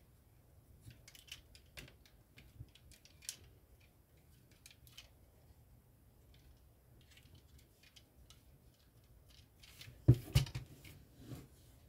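LEGO plastic pieces clicking and rattling as hands fit parts onto a model car, in scattered small clicks. About ten seconds in come a few much louder knocks of the plastic car against the LEGO baseplate.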